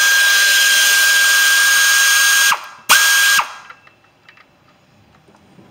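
Pneumatic air ratchet spinning out an 8 mm bracket bolt: a long steady run with a high whine over air hiss that stops about two and a half seconds in, then a second short burst. After that only faint small clicks of the tool and bolt being handled.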